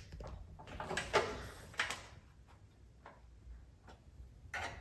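A few light knocks and clicks of mower parts being handled and set in place, then a quiet spell and one more knock near the end.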